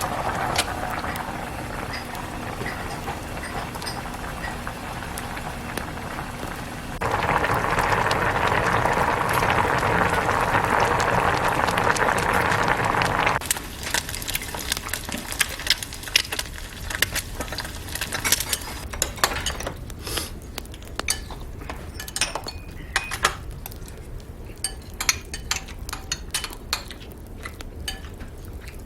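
Kitchen cooking sounds. A steady hiss of food cooking in a pot grows louder from about seven seconds in and cuts off sharply about six seconds later. After that comes a long run of light clinks and taps of utensils against cookware and dishes.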